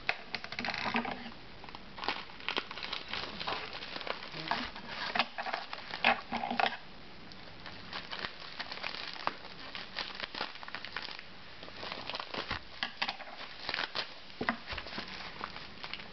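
Plastic bubble wrap crinkling and rustling in irregular crackles as it is cut open with scissors and peeled off a power bank.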